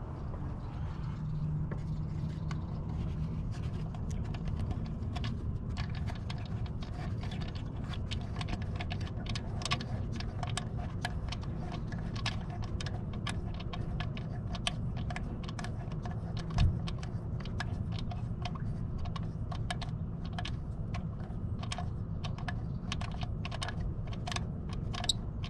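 Light, irregular metal clicking as a 10 mm hex bolt with a washer is turned out by hand from an aluminium cover bracket in a 2005 Toyota Prius engine bay. There is one louder knock about two-thirds of the way through, over a steady low rumble.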